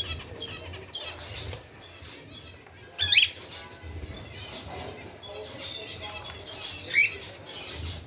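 A small flock of pet cockatiels, with doves and zebra finches among them, chirping steadily while feeding, with two louder rising calls, one about three seconds in and one near the end.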